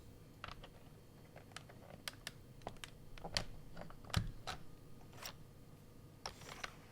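Typing on an AppleDesign Keyboard with Alps slider-over-dome switches and PBT dye-sub keycaps: about twenty irregular keystroke clicks with short pauses between runs, the loudest about four seconds in.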